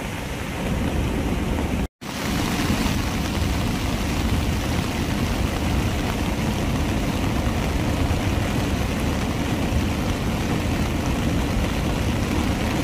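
Water pouring through a dam's open spillway gates: a loud, steady rush with a heavy low rumble. The sound drops out for a split second about two seconds in.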